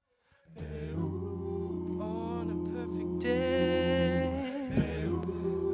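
All-male a cappella group singing: sustained close-harmony chords over a steady low bass voice, with a lead voice coming in on top about three seconds in.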